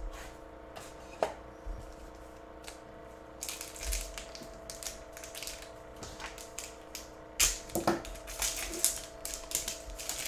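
Foil wrappers of 2022 Rookies and Stars football card packs and their cardboard box crinkling and rustling as hands handle and open them, in two bursts of scratchy crackling, over a faint steady hum.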